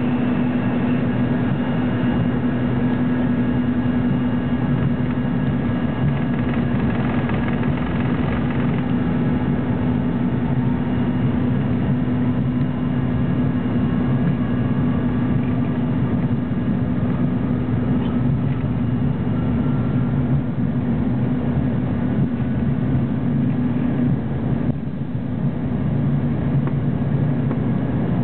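Aircraft engines heard from inside the passenger cabin during takeoff: a steady loud drone with a strong low hum and thin high whines, some of which slowly rise in pitch in the middle.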